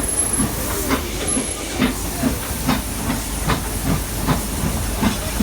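Narrow-gauge toy train running, heard from on board: a steady running rumble and hiss with the wheels knocking over rail joints about once or twice a second.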